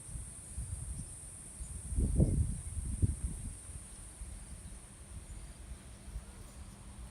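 Steady high-pitched drone of jungle insects. About two seconds in, a few low rumbling thumps are briefly louder than the drone.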